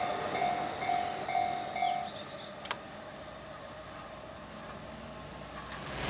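Japanese level-crossing warning bell ringing about twice a second over a fading train rumble. The bell stops about two seconds in, and a single sharp click follows shortly after.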